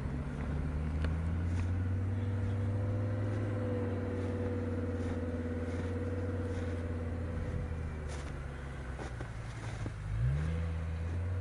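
Engine of an off-road 4x4 running steadily under load, easing off around eight seconds in, then briefly revving up about ten seconds in.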